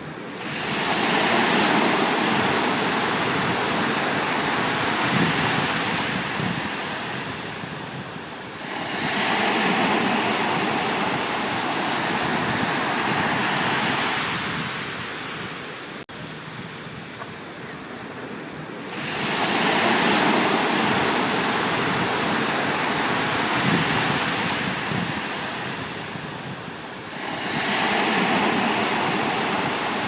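Ocean waves rushing along a cruise ship under way, swelling and easing in long surges several seconds long, with short lulls between.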